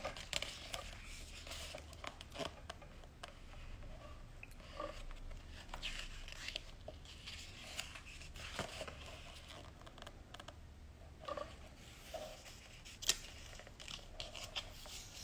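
Pages of a large photobook being turned and handled: faint paper rustling and soft clicks, with a louder rustle about thirteen seconds in.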